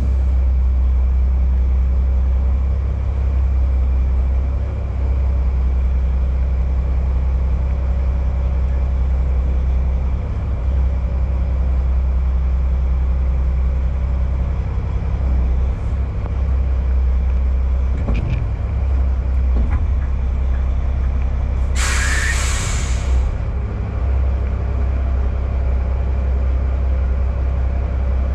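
Dump truck's diesel engine running with a steady low rumble. About three-quarters of the way through, a loud hiss of air from the truck's air brakes lasts a little over a second.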